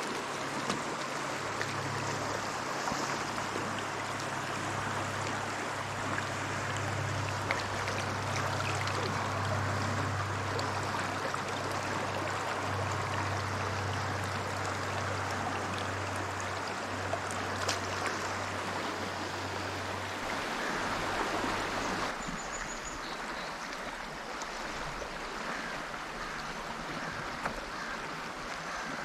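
River water rushing steadily, with a low hum underneath that drops out about two-thirds of the way through.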